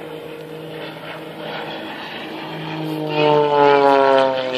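Single-engine aerobatic stunt plane's piston engine and propeller droning overhead, growing much louder about three seconds in as it passes close, its pitch then falling steadily as it goes by.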